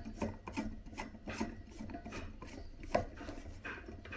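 Telescoping steel IKEA Olov table leg being twisted by hand to lock its height: a run of short, irregular rasping scrapes and rubs, several a second, as the sections turn against each other.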